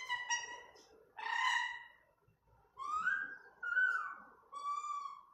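Blue-fronted amazon parrot calling: a series of about five short, pitched calls near 1 kHz with clear overtones, some sliding up or down in pitch, with brief pauses between them.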